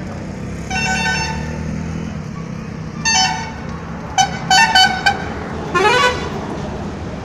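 Vehicle horns honking in street traffic: one horn about a second in, another around three seconds, a quick run of short toots between four and five seconds, and a wavering horn near six seconds, over a steady background rumble.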